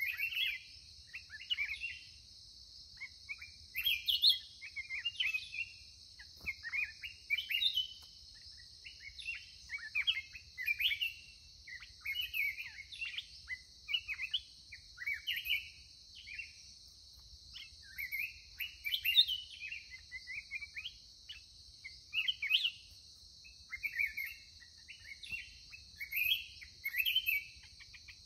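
Black-crested bulbuls singing: short, quick chirping phrases repeated every second or two, over a steady high hiss.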